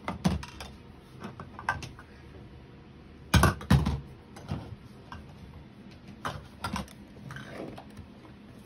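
A baby knocking plastic cups and hands against the lid of a plastic storage bin: scattered plastic taps and clatters, the loudest pair about three and a half seconds in.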